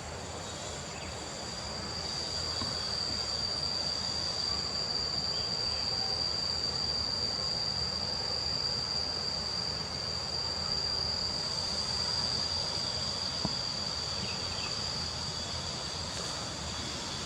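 Steady, unbroken high-pitched insect chorus, with faint outdoor background noise underneath.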